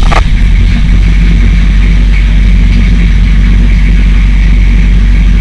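HMMWV M998's diesel V8 engine running steadily at a constant speed, very loud and close to the microphone.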